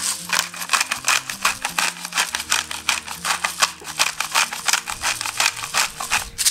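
Handheld pepper grinder being twisted, its burrs cracking peppercorns in a rapid, even run of crisp grinding clicks, about five a second.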